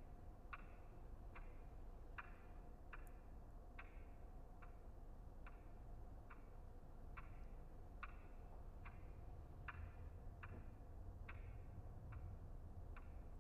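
A clock ticking slowly and evenly, a little more than one tick a second, over a faint low hum.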